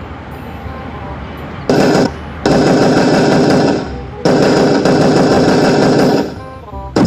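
Rapid automatic-gunfire sound played loud through a hidden prank loudspeaker: one short burst about two seconds in, then two long rapid-fire stretches of a second and a half to two seconds each.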